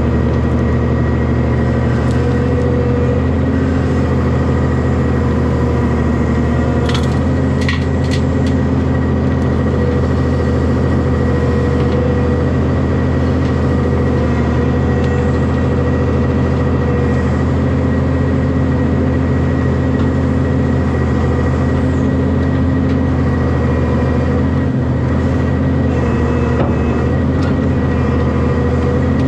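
Heavy diesel engine running steadily, with a few sharp knocks about seven to eight seconds in.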